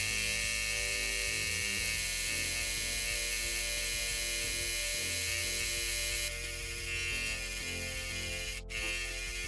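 Chinese-made rotary tattoo machine running with a steady electric hum while it fills in the tattoo. The sound briefly drops out near the end.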